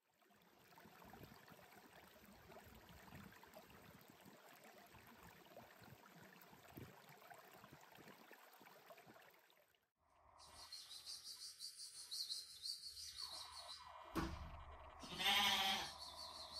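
A lamb bleats once near the end, a short wavering call and the loudest sound, just after a thump. Before that there is a faint steady hiss.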